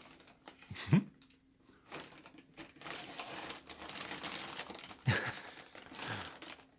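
Thin plastic shrink-wrap from a bottled-water case crinkling and crackling as a cat moves with its head stuck inside it. There are two louder sudden sounds, about a second in and about five seconds in.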